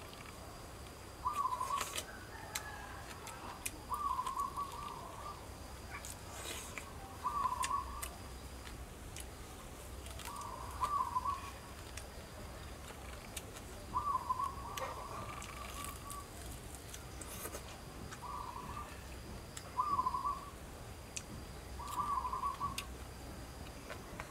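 A bird calling outdoors, repeating a short call of under a second about every two to four seconds, with faint scattered clicks from eating in between.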